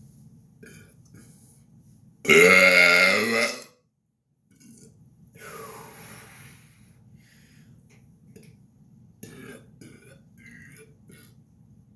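A man's loud, deliberate burp lasting about a second and a half, deep and wavering in pitch, starting about two seconds in and cutting off abruptly. A fainter breathy sound and a few small clicks follow.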